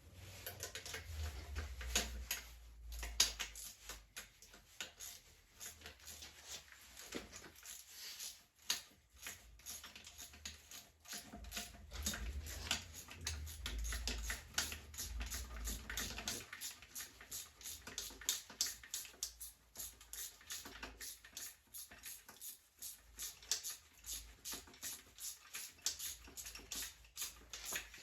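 Light metallic clicks and taps of hand tools and engine parts being handled during disassembly of a Chevy 5.3 V8. The clicks come in a long, irregular run that turns fairly even in the second half, with a faint low thump now and then.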